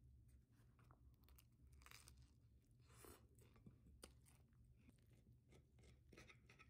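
Faint crackling and crunching of a flaky croissant crust as it is squeezed and torn apart by hand, with a few sharp crackles.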